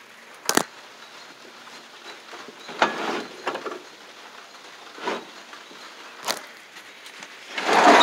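Scattered knocks and clicks of a wooden shed door and its latch being handled, followed near the end by a louder rushing scrape as the door is pushed.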